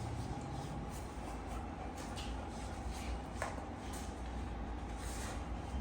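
Steady low hum with a faint steady high tone, and a few soft clicks and taps scattered through it.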